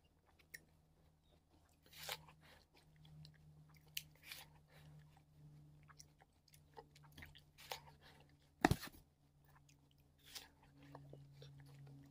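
Close-up chewing and crunching of frozen watermelon: scattered short crunches and wet clicks, with one sharp, louder crack about two-thirds of the way in.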